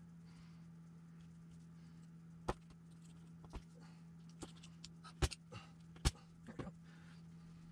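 Scattered sharp clicks and light knocks of small tools and RC truck parts being handled on a workbench, starting about two and a half seconds in, the loudest about five and six seconds in, over a steady low hum.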